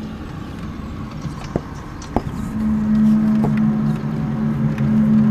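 Low, steady droning hum from outside, the unexplained kind of noise circulated as a 'strange sky sound'. It is weaker at first and swells back up about two and a half seconds in, with two sharp clicks shortly before.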